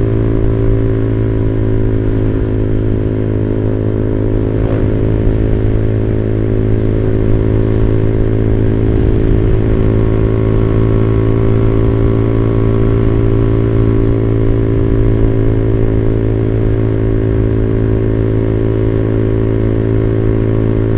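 Motorcycle engine running steadily through a WRX GP5 aftermarket exhaust, a 25 cm muffler with a half baffle, with a constant deep tone and no revving. The sound is somewhat bassy, which the rider puts down to the muffler and a camshaft with higher lift and duration.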